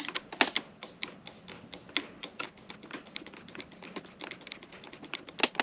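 Quick irregular light metallic clicks, several a second with a few louder ones, as a screwdriver turns the pivot bolt of a motorcycle brake lever.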